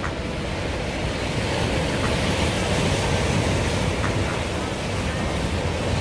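Sea surf breaking and washing over rocks at the shoreline, a continuous rushing of waves, with some wind rumble on the microphone.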